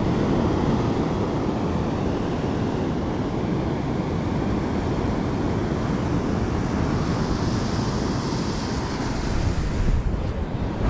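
Sea surf washing on the beach with wind buffeting the microphone: a steady rush of noise that swells a little in hiss about seven seconds in.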